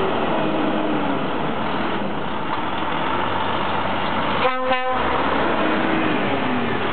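DAF XF trucks running as they drive past close by, with two short horn toots about four and a half seconds in.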